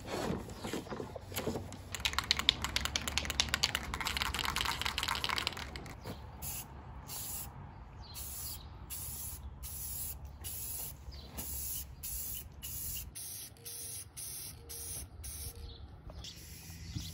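Aerosol spray-paint can: a few seconds of fast rattling, like the can being shaken with its mixing ball, then a long series of short spray bursts hissing onto the plastic table.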